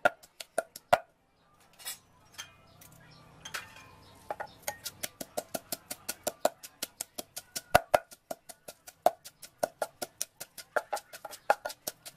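Wooden pestle pounding chilies and garlic in a clay mortar: a fast, even run of sharp knocks, about four a second. The pounding stops about a second in, with only a few stray knocks, then starts again about four and a half seconds in and carries on steadily.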